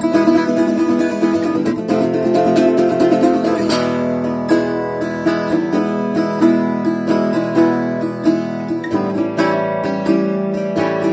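Vintage Schönbach-made folk/gypsy-style acoustic guitar from the 1930s–1940s being played: strummed chords and plucked notes in a steady rhythm.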